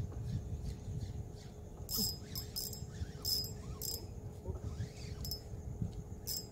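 Drag of a small Hinomiya Terracotta Mighty 1000 spinning reel buzzing in about seven short, irregular bursts, starting about two seconds in, as a hooked fish pulls line. A low rumble runs underneath.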